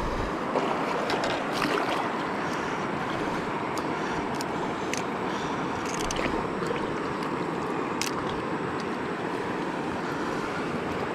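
Steady rush of shallow river water running over rocks, with scattered small splashes and clicks from hands and a fish held in the water.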